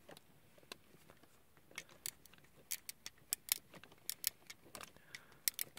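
A small screw being turned with a precision screwdriver into a plastic model aircraft: faint, irregular clicks and creaks as the screw cuts into the plastic, which sounds like something breaking.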